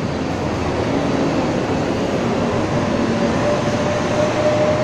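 Steady roar of city street traffic, with a faint whine slowly rising in pitch in the second half.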